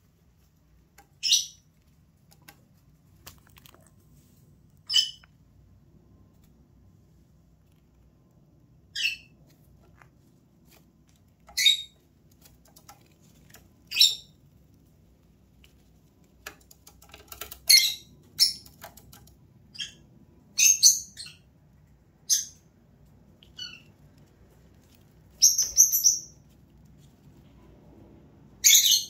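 Rosy-faced lovebirds chirping: short, high-pitched calls, a few seconds apart at first and coming more often, some in quick pairs, in the second half.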